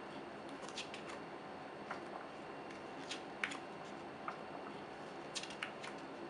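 Pages of a large glossy photobook being turned by hand: scattered crisp paper crackles and snaps, the sharpest about three and a half seconds in, over a steady low hiss.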